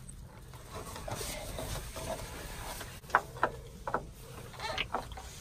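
Screwdriver working the band clamp of a no-hub coupling on a sewer pipe, with scraping and rubbing, then several sharp clicks and knocks from about three seconds in as the pipe fitting is worked loose and handled.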